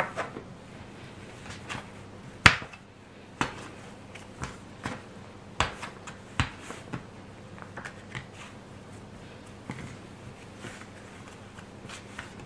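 Plastic dough scraper chopping a block of butter into small pieces on a wooden table: irregular sharp taps of the scraper edge striking the wood, the loudest about two and a half seconds in.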